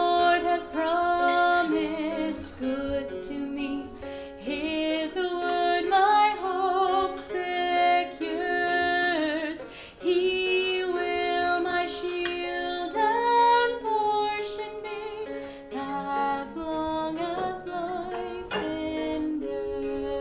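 A song sung to a plucked string accompaniment, with held, gliding vocal lines over steady plucked notes.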